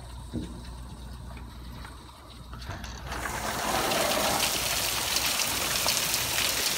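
Small hailstones pelting the ground and roof in a dense, fine clatter. It is muffled and quiet at first, then gets suddenly much louder about three seconds in and stays loud.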